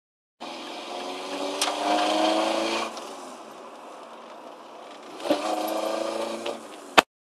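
Renault Mégane Mk1 Coupé engine heard from inside the cabin, revved twice and settling back towards idle between revs, each rev a rising pitch. A short tick comes as each rev begins, and a sharp click at the very end.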